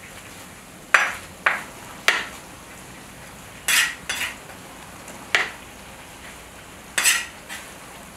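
Metal skimmer scraping and knocking against the wall of a large metal kazan as plov rice is stirred and turned, in sharp strokes about every second, unevenly spaced.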